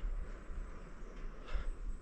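A person breathing out hard in short puffs, about once every two seconds, while doing push-ups, over a steady low rumble.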